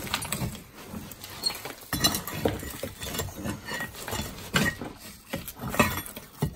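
Ash and brick rubble being scraped and dug out of a brick stove's firebox, with irregular clinks and knocks as a hammer strikes and pokes at the cast-iron fire grate.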